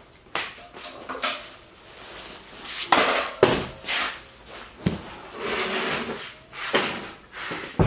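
Straw bales being shifted and set into place: scratchy rustling and scraping with several sharp knocks scattered throughout.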